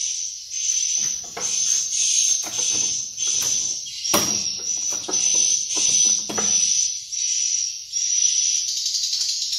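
Swiftlet twittering in a swiftlet house: a continuous high, buzzy chirping that pulses about twice a second. Handling knocks and rustles sound under it for the first two-thirds.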